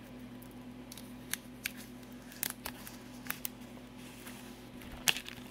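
Plastic shrink wrap on a cardboard box being picked at with the fingers and torn open: scattered light crinkles and clicks, the sharpest snap about five seconds in, over a steady low hum.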